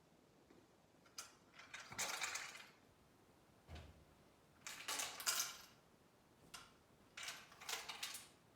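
Cannondale mountain bike giving about six short bursts of metallic clattering, each under a second, with pauses between them: the rattle in its frame.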